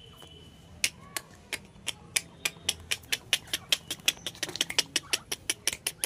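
Fingers snapping over and over: sharp snaps about four a second, starting just under a second in and coming faster toward the end.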